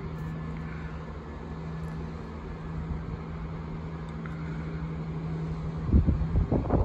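Steady distant drone of a Class 170 Turbostar diesel multiple unit's engines running, with a constant low hum. About six seconds in, wind starts buffeting the microphone in loud gusts.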